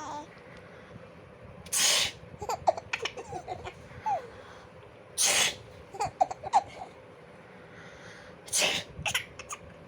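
A person sneezes three times, about three and a half seconds apart. After each sneeze a baby giggles in short, high squeals.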